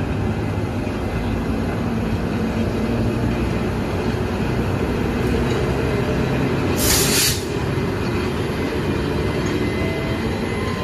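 Taiwan Railways E200-class electric locomotive moving slowly past with its train of express coaches: a steady rumble and hum of the locomotive and wheels on the rails. About seven seconds in there is a short, loud hiss of released air.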